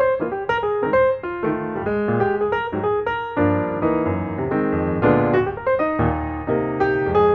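Background piano music: a melody of quick single notes over held low notes.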